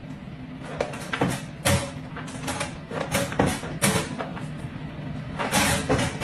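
Wire door of a plastic pet travel crate rattling and knocking as it swings back and forth against the crate and the dog's head: a string of irregular sharp clicks and clanks.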